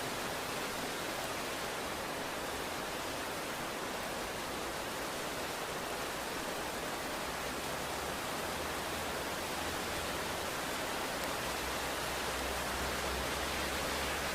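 Steady heavy rain hissing, with a low rumble of distant thunder building in from about halfway through and strongest near the end.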